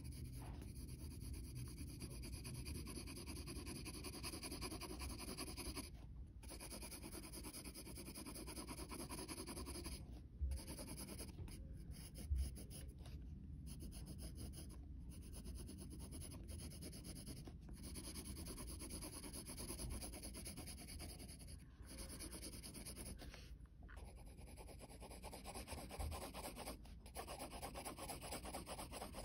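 Graphite pencil shading on sketchbook paper: quick, faint back-and-forth rubbing strokes that break off briefly every few seconds, with a couple of soft thumps around the middle.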